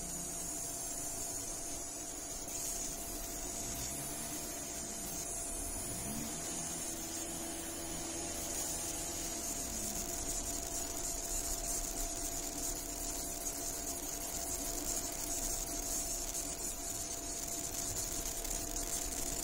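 Laser marking machine running as it engraves a stainless steel plate: a steady hiss with a high whine and a thin steady hum.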